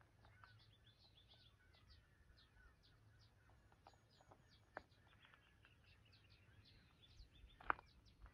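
Faint birdsong: many quick, high chirps from small birds, with two sharper clicks, the louder one near the end.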